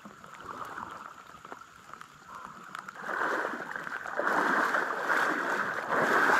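Water sloshing and splashing around a person's legs as he wades through thigh-deep water, towing a kayak. Faint at first, the sloshing starts about three seconds in and grows louder.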